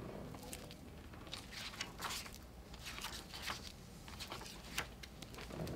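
Faint rustling and soft clicks of paper as a hardcover picture book is opened and its pages are turned.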